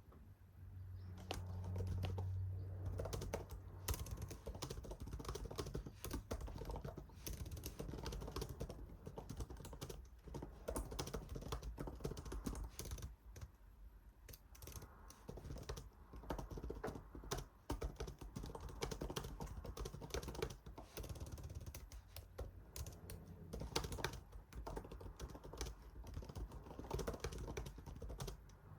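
Irregular typing on a computer keyboard, a steady patter of key clicks with short pauses, over a low hum in the first few seconds.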